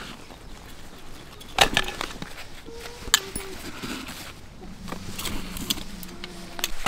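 Camping gear being handled at a fabric tool bucket: scattered sharp clinks and knocks of metal tools, the loudest about one and a half seconds in and again about three seconds in.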